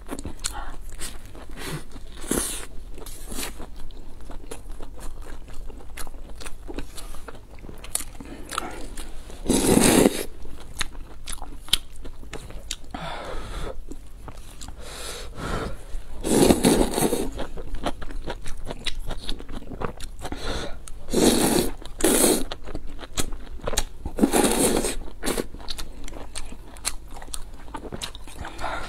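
Close-miked eating: chewing and biting a steamed bun and stewed meat, with many small wet mouth clicks and several louder bites or slurps along the way.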